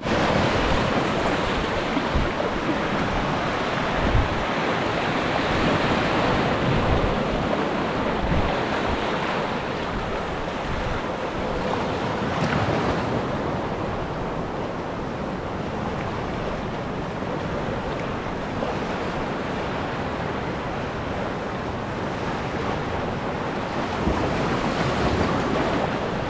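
Small waves washing over the shallows in a steady rush, with wind buffeting the microphone in occasional low bumps.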